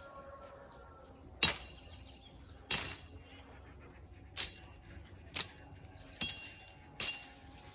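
Machete chopping through brush and woody stems: six sharp cuts, roughly a second apart.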